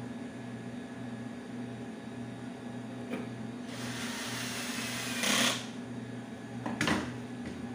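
Cordless drill-driver whirring for about two seconds as it drives a screw into a chair's seat board, loudest just before it stops. A sharp knock follows near the end.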